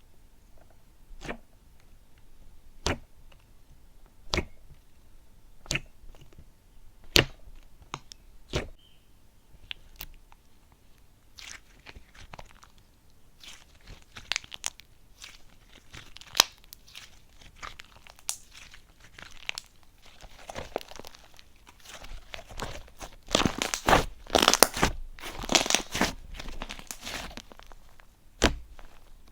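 Slime being pressed and squeezed by hand, giving crisp separate pops about every second and a half, then a dense run of crackling and crunching near the end.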